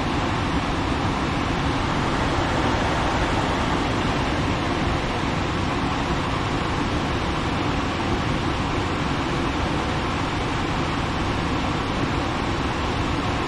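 Gas furnace running with a steady rushing of its blower fan. It keeps running although it should be off, which the repairman puts down to a failed control board.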